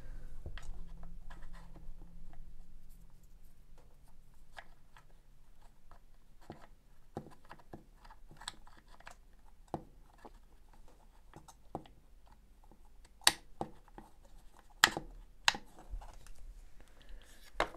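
Hard plastic tool-housing parts being handled and fitted together by hand: scattered small clicks and rubs, with a few sharper plastic clicks in the last five seconds.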